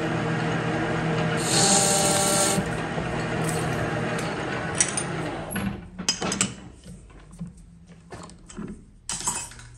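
Metal lathe running steadily with a steel pad spinning in the chuck. About five and a half seconds in the spindle stops, and scattered clicks and knocks follow as the chuck and part are handled.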